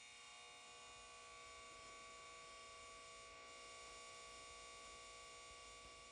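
Near silence: a faint, steady electrical hum made of several held tones.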